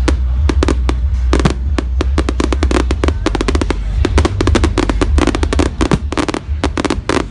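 Fireworks going off in a dense barrage: rapid sharp cracks and bangs, several a second, over a continuous deep rumble.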